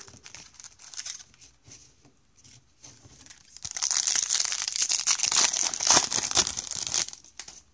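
Foil wrapper of a Topps baseball card pack being torn open and crinkled, a dense crackling that starts about three and a half seconds in and lasts a few seconds, after some light handling clicks.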